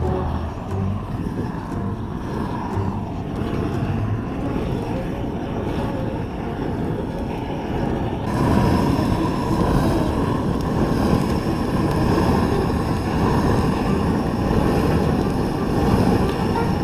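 Sheen X300 paraffin flame gun burning with a steady jet sound, its pressurised fuel vaporising in the pre-heated coil, which means the gun is up to heat and ready to use. It gets louder about halfway through.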